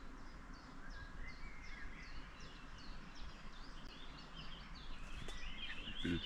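Birds singing in woodland: one bird repeats short, high, falling notes about three times a second, and more varied twittering joins near the end. A brief low thump comes just before the end.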